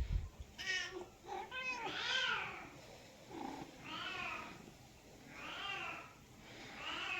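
Domestic cat meowing over and over, a string of drawn-out meows that each rise and then fall in pitch, coming about every one and a half seconds. A few low knocks sound right at the start.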